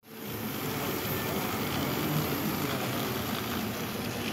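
Model train running along the layout track, a diesel locomotive pulling freight cars: a steady hum of the motor and the wheels rolling on the rails.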